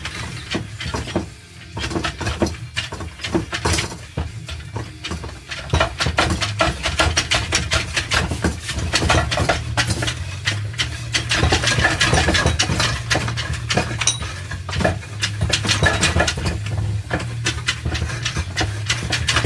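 Rapid, uneven metallic clicking and clattering of 4L60E automatic transmission gear-train parts as the input shaft is wiggled back and forth with vice grips clamped on its splines, working the drums and planetary gears into place. The clicking gets denser from about six seconds in.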